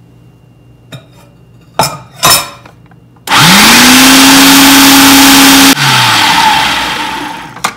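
Two short knocks, then a food processor motor switches on, quickly rises to full speed and runs loud and steady for about two and a half seconds while mixing pizza dough. It then cuts out and spins down, and the churning noise fades over the next two seconds.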